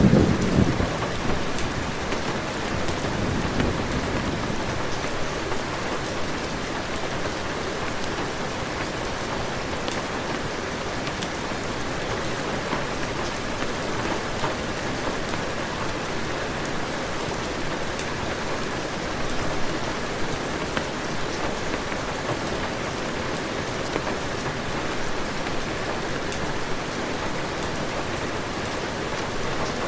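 Steady heavy rain, with the tail of a low thunder rumble dying away in the first few seconds.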